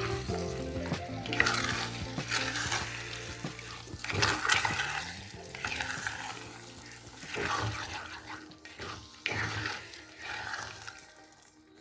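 Soft background music that fades out near the end, over irregular kitchen noises: food stirred and scraped in a pan, with light sizzling.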